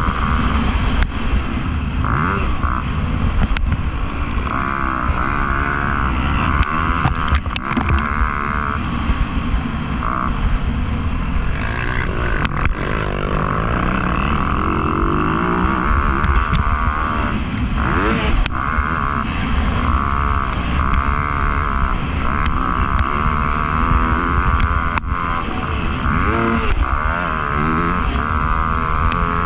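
Motocross bike engine revving up and down over and over while being raced, its pitch rising and falling with the throttle and gear changes.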